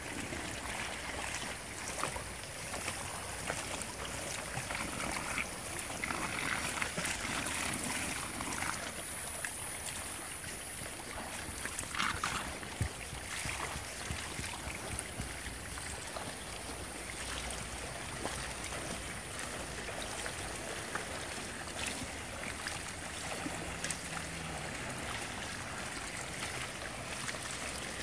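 Steady splashing and sloshing of pool water from a swimmer's strokes, with scattered small splashes.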